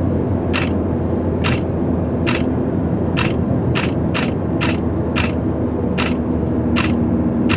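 A still camera's shutter firing over and over, about eleven clicks at roughly one every half to one second, as photos are shot in a series. Under it runs the steady road and engine drone inside a moving car's cabin.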